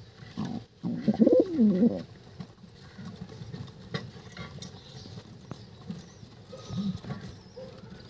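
Dove cooing: one loud, falling coo about a second in, with a couple of shorter, fainter low coos around it.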